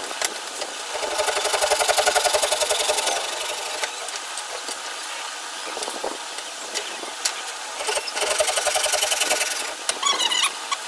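A motor running in two bursts of about two seconds each, with a fast buzzing pulse, and a few short squeaks near the end.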